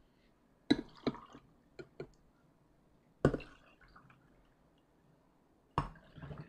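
Fresh milk poured over ice cubes and coffee jelly in drinking glasses: a few short, sharp splashes and clinks of ice and glass, with quiet between.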